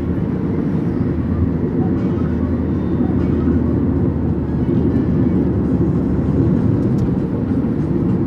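A car driving along a road: a steady, low rumble of engine and tyre noise that holds even throughout.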